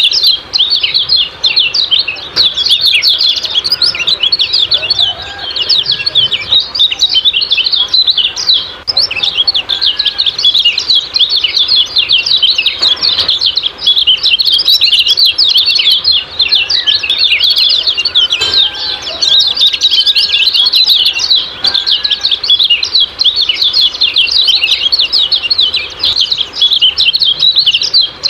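Kecial kuning birds giving their rapid 'ciak-ciak' chirping call, a dense, unbroken stream of quick high chirps, with a few fainter, lower whistles now and then.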